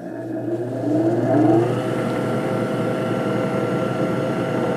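Lapidary flat lap's electric motor spinning up with a rising whine over the first second or two, then running at a steady hum as the polishing disc turns at speed.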